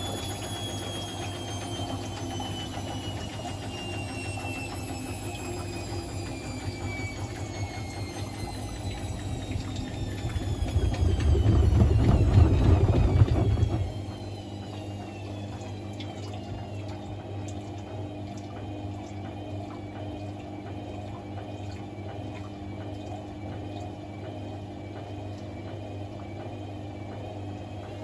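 Hotpoint Ultima WT741 washing machine coming down from spin, its motor whine falling in pitch. About ten seconds in, the drum shakes and rumbles loudly for a few seconds, then turns on with a quieter steady hum. The shock absorbers have come off, so the unbalanced towel load shakes the drum freely.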